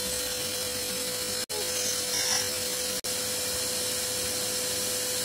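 Household vacuum cleaner running steadily, a constant tone over a hiss, powering suction through a Baby-Vac nasal aspirator held to a child's nostril to draw out mucus. The sound drops out for an instant twice.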